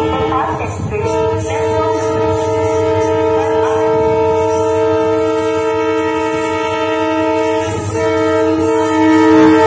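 WDP4 diesel locomotive's horn sounding one long steady blast as the train approaches, over the low rumble of the train. Near the end the horn breaks off briefly and starts again.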